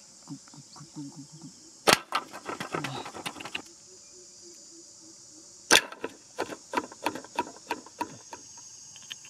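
Two sharp snaps about four seconds apart, each followed by a run of light wooden clicks and clatters, from hands setting a bamboo-stick trap. Crickets chirr steadily behind.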